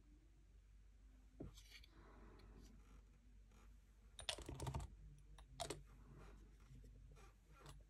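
Faint, scattered clicks and taps from a plastic model kit and its gluing tools being handled, with a quick run of clicks about four seconds in.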